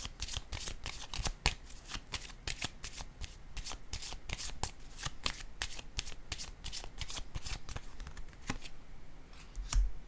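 A deck of oracle cards shuffled by hand: a quick, continuous run of card flicks that thins out and stops about a second and a half before the end. A soft low thump follows near the end.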